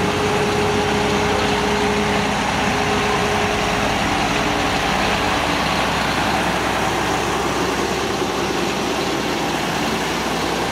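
Concrete pump truck's diesel engine running steadily at idle, before the pump has started working.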